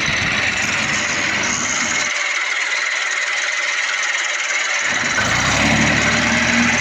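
Massey Ferguson tractor's diesel engine running with a steady, noisy drone. Its deep part drops away for a couple of seconds in the middle, and a low hum with steady pitched tones comes back about five seconds in.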